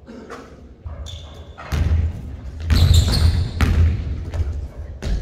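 Basketball bouncing on a wooden gym floor, several thuds ringing in a large hall, with a short sneaker squeak.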